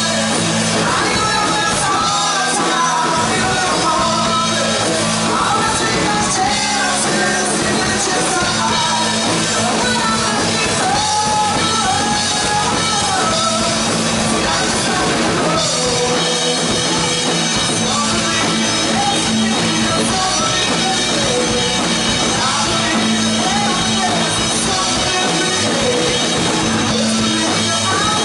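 Live band playing a country-rock song: a woman singing lead over acoustic guitar, electric guitars, bass and drums, amplified through a PA.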